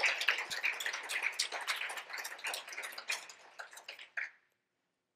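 Audience applause, thinning out and dying away about four seconds in.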